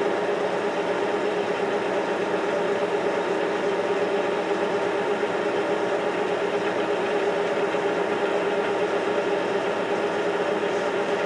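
1952 Monarch Series 60 engine lathe running steadily during a light finishing cut on a taper, with the compound under power feed. Its gearing and spindle give a constant mechanical hum with several held tones.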